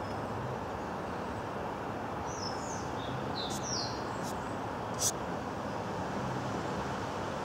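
Steady hum of street traffic as cars drive slowly through a residential intersection, with a few short, falling bird chirps around the middle and one sharp click about five seconds in.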